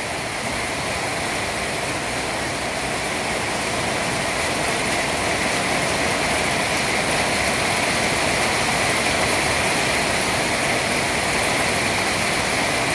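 Heavy rain falling on corrugated metal sheet roofs: a steady, dense hiss that grows slightly louder over the first several seconds.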